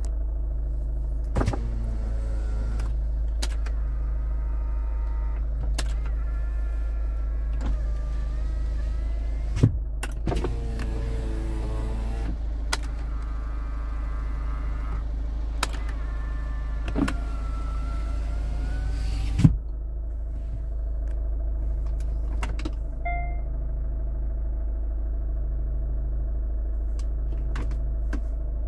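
Electric power-window motors of a Hyundai Santa Fe whining in several runs, each ending in a thud or click as the glass reaches its stop. Underneath runs the steady idle of its 2.0-litre turbo-diesel. The whining stops about twenty seconds in, leaving only the idle.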